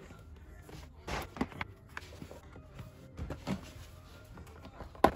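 Handling noises in a car's footwell: rustling and light knocks as a wire is worked by hand, with a sharp click near the end.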